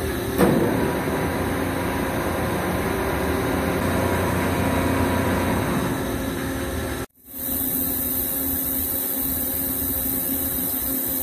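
Large CNC vertical lathe running: a steady machine hum with several steady tones, and a brief sharp sound about half a second in. After a cut about seven seconds in, a steady hum with a strong high hiss.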